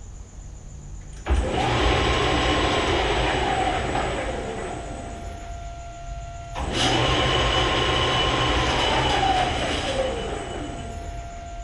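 Clausing 1500 lathe with a 7½ hp motor on a Huanyang VFD, started and stopped twice. Each time it comes up to speed suddenly with gear and motor whine, runs briefly, then winds down with the whine falling in pitch as the drive slows the spindle.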